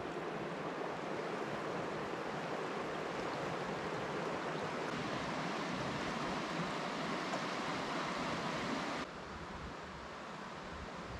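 Metolius River running over a shallow riffle: a steady rush of flowing water that drops to a quieter, steady hush about nine seconds in.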